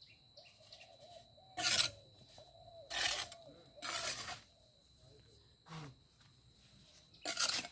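Scraping strokes against a hollow concrete block wall as the mortar is worked: four short scrapes of about half a second each, a second or more apart, with a fainter one in between.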